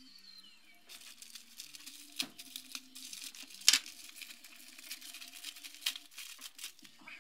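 White plastic mailing bag being torn open by hand, crinkling and crackling, with a few sharper rips. The crinkling starts about a second in.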